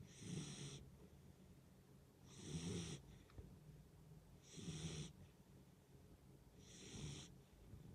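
Dog snoring in its sleep: four faint snores about two seconds apart, each about half a second long.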